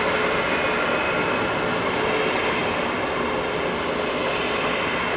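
Airbus A340-600's four Rolls-Royce Trent 500 turbofans running at low taxi power: a steady jet hiss with a faint whine held in it.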